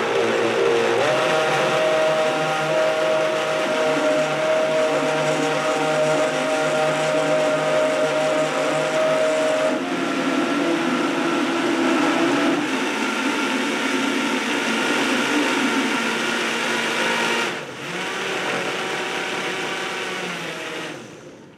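High-powered countertop blender running at full speed on a coconut-milk mixture, its motor note shifting in pitch a couple of times as the tamper pushes the mixture down. It dips briefly about 17 seconds in, runs quieter for a few seconds, then cuts off just before the end.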